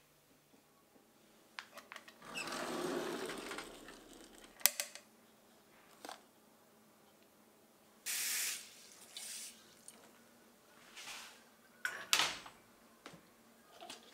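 Quiet kitchen handling sounds. There is a rush of noise about two seconds in, a sharp click a little later, then several short hissing scrapes and knocks, as jars and a drawer are handled.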